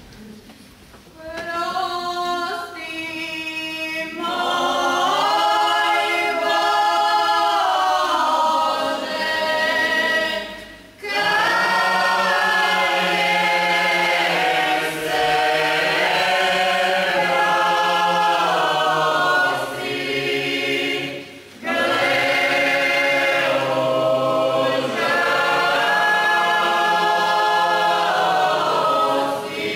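Mixed folk choir of men and women singing a Catholic Lenten hymn a cappella in traditional style. Higher voices begin about a second in and lower voices join a few seconds later. The singing breaks briefly between phrases, twice.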